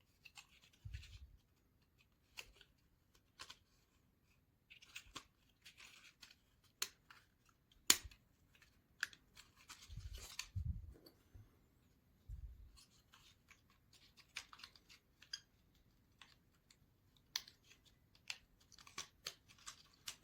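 Faint, scattered clicks, taps and light scrapes of small basswood model-kit parts being handled and pressed into place, with a sharper click about 8 s in and a short spell of rustling around 10 s.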